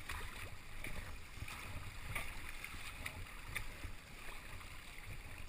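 Kayak paddle strokes splashing and water rushing along the hull as the kayak tries to catch a set of following waves, with a low rumble of wind on the microphone.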